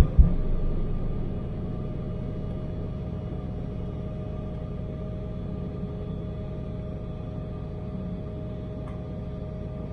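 Jet cabin noise at liftoff, with the Embraer E175's turbofan engines at takeoff thrust. Runway rumble and two quick knocks come right at rotation, and the rumble eases off over the first second as the wheels leave the ground. A steady engine drone and whine carry on through the climb.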